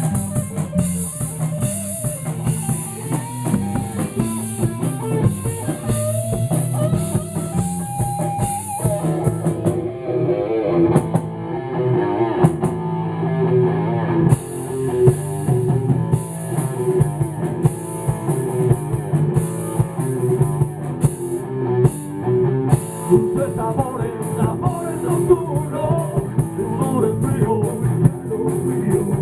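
Rock band playing: electric guitar and drum kit, with a wavering melody line over a steady beat.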